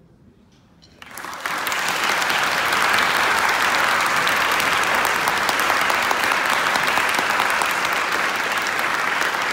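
Audience applause starts about a second in, swells quickly and then holds steady.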